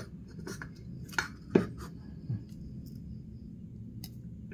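Light metallic clicks and clinks of a feeler gauge blade being handled and slid between a piston and the bore of a Yamaha RX-King two-stroke cylinder block while checking piston-to-cylinder clearance. A handful of sharp taps, the loudest a little over a second in, over a low steady hum.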